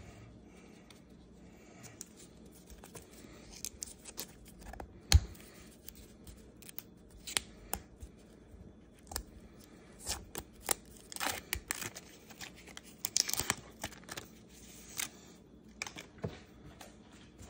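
A stack of paper baseball cards being handled and thumbed through in the hands, cards sliding and flicking against one another in an irregular run of short clicks and scrapes. A sharper knock comes about five seconds in.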